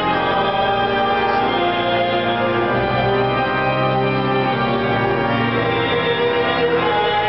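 Santiago de Compostela Cathedral's pipe organ playing sustained chords.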